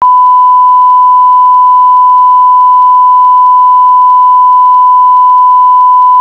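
Television colour-bar test tone: one loud, unbroken, steady beep at a single pitch, starting abruptly. It is the sign-off or test signal of a station going off air.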